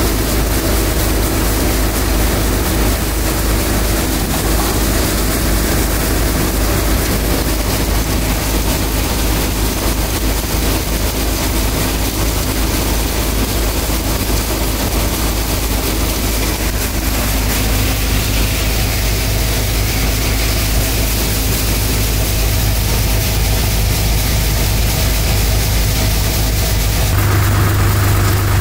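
Tractor diesel engine running steadily under load while pulling a hydraulic opener implement, a constant low hum. About 27 seconds in the sound shifts to a stronger, deeper drone.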